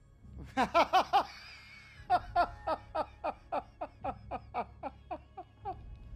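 A man laughing hard in short bursts that fall in pitch. Four loud laughs come about half a second in, then a rapid run of about four laughs a second follows, growing fainter towards the end, over a low steady rumble.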